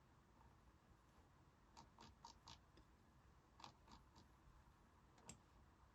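Near silence with faint short clicks: four in quick succession about two seconds in, three more near four seconds, and a last single one near the end.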